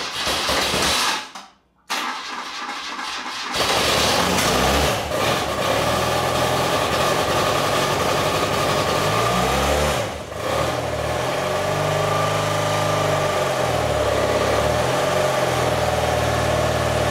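Motorcycle engine cranked on its starter with the choke on, powered by a jump-starter pack because the bike's own battery is dead. It cranks in two short tries, catches about three and a half seconds in and keeps running. From about ten seconds in, the revs rise and fall in waves.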